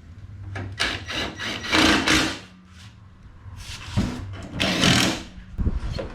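Tool and parts handling during car front-end reassembly: several short, noisy bursts of clattering and rubbing, the loudest about two seconds in.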